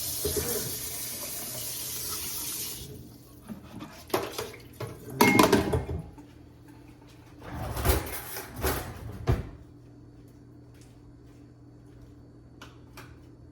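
Kitchen tap running in a steady stream for about three seconds, then stopping; a series of knocks and clatter follows, like dishes being handled.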